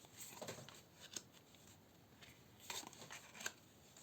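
Faint rustles and a few light clicks of tarot cards being handled and laid down, about four small sounds spread through the quiet.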